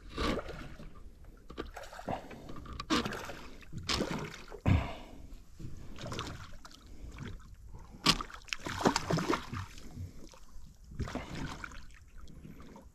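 Water splashing and sloshing in irregular bursts beside a small boat, with a few sharper splashes about four seconds in and again around eight to nine seconds: a hooked redfish thrashing at the surface as it is fought close to the boat on a spinning rod.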